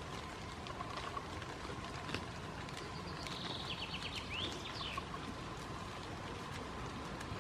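A small bird sings a short, rapid run of high notes about three seconds in, over a steady outdoor hiss with scattered faint ticks.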